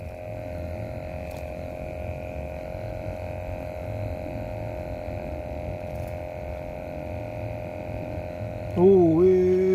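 Steady mechanical hum of a few even tones. Near the end a much louder, lower drone comes in, wavers in pitch, then holds steady.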